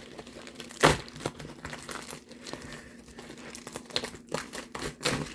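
Packaging crinkling and rustling as it is handled and pulled open, with a sharp louder crackle about a second in and another near the end.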